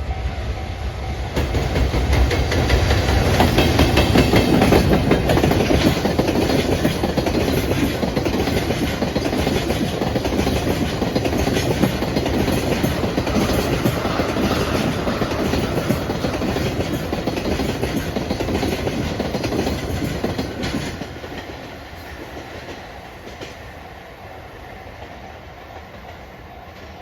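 A JR Freight EF210 electric locomotive passes, loudest a few seconds in, followed by a long rake of Taki tank wagons whose wheels clack steadily over the rail joints. The clatter ends about 21 seconds in and the sound drops away, leaving a level-crossing warning bell ringing steadily.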